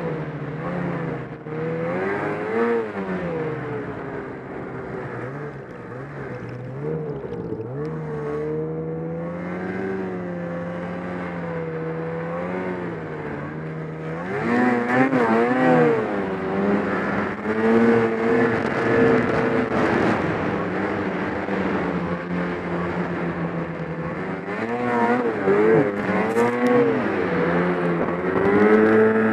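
Snowmobile engine running under way, its pitch rising and falling with the throttle. It grows louder about halfway through with quick rises and dips in revs, then revs up again near the end.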